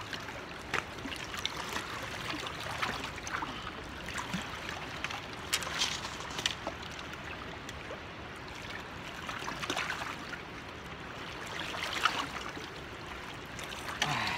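River water lapping and trickling against a rocky shore, with scattered small splashes and knocks as a small bass is handled in the shallows.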